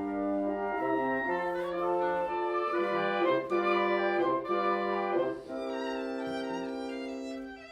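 Chamber orchestra playing: several parts moving together in sustained notes, then settling on a long held chord for the last couple of seconds, which fades out at the very end.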